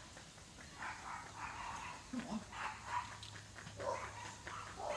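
A dog whining and yelping in short, repeated calls.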